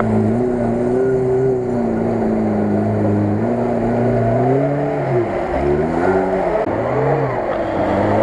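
Lada Niva engine driving through deep mud, the revs fairly even at first, then dropping and rising several times in the second half.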